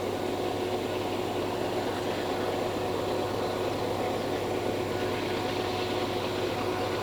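Diesel locomotives of a loaded freight train running steadily at full throttle (notch 8), working hard up a steep grade, with a steady whine over a continuous rumble.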